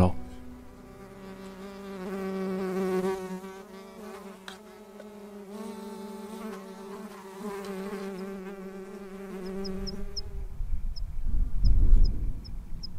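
A fly buzzing close by, its pitch wavering slightly, fading out about ten seconds in. Near the end a low rumble rises, and a small bird gives a run of short high chirps.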